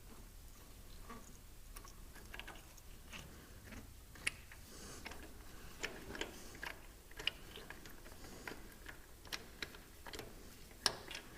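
Hand tools at work on tractor parts: faint, irregular light clicks and taps of metal, with a couple of sharper clicks about four seconds in and near the end.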